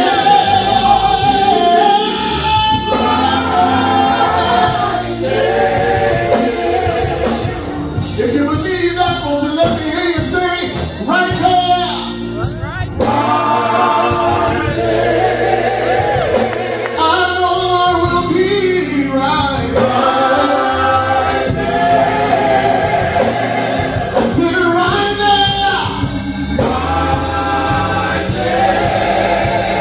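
Male gospel vocal group singing live through microphones, a lead voice at the front with the others singing along in harmony.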